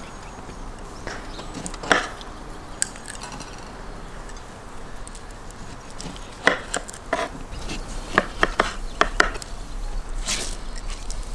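A kitchen knife slicing lemons on a wooden cutting board: scattered sharp knocks of the blade meeting the board, with a quick run of about five knocks a little past the middle.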